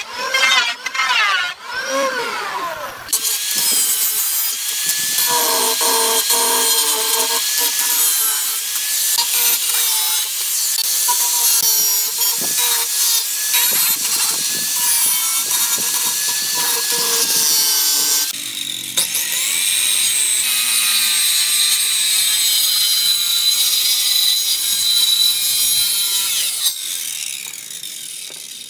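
An electric hand planer runs over wooden boards, its motor pitch dipping and recovering with each pass. About three seconds in, an angle grinder with a sanding disc takes over, a steady high whine as it sands the wood, running with one short break and dying away near the end.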